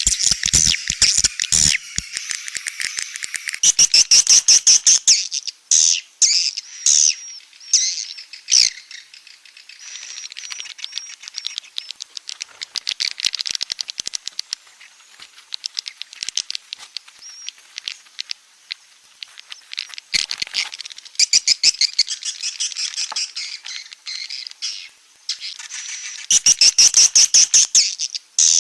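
Swiftlet calls from a swiftlet-house 'outside call' lure recording: fast trains of high, twittering chirps that come in bursts, loudest a few seconds in and again near the end.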